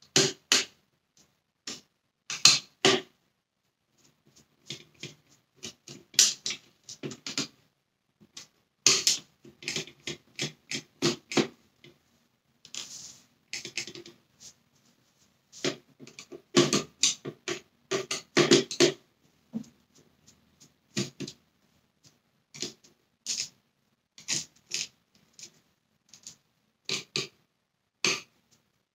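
Small flathead screwdriver turning and scraping in the tiny Torx screws of a Dyson Cinetic Big Ball vacuum's plastic housing: irregular runs of short clicks and scrapes, with brief pauses. A flathead is standing in for the right Torx bit.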